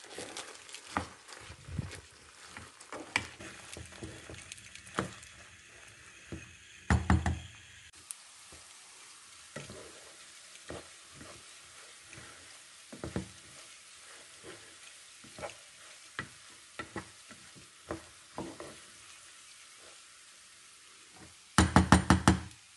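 Wooden spoon stirring rice grains as they toast in a nonstick pot, the grains scraping and rustling with irregular knocks of the spoon against the pot. Near the end a quick run of about five loud knocks, the spoon struck against the pot.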